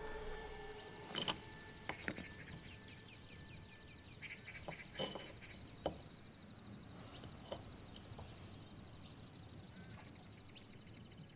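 Faint outdoor ambience: a steady, high, finely pulsing insect trill, with a few short bird chirps and sharp clicks in the first half.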